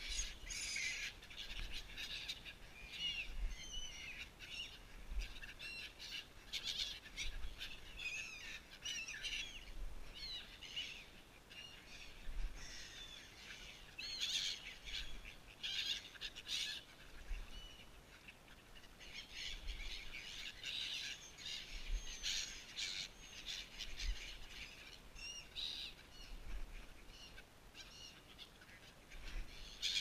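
A flock of black-headed gulls calling over and over, many short, high, overlapping cries, thinning out briefly a couple of times.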